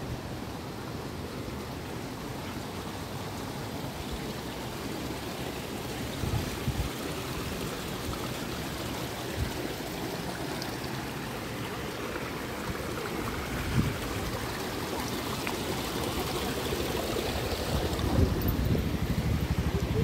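Steady rushing noise of running water, with a few low thumps along the way; the noise grows louder near the end.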